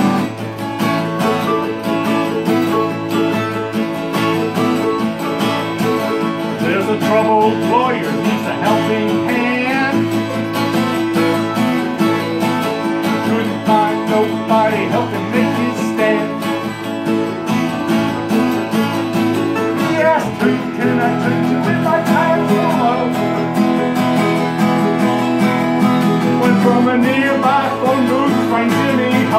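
Acoustic guitar strummed with a mandolin playing along in a country/bluegrass-style tune.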